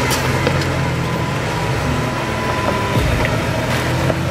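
Jeep Wrangler Rubicon engine running steadily at low revs as it crawls up a rocky dirt trail, with scattered light clicks over the hum.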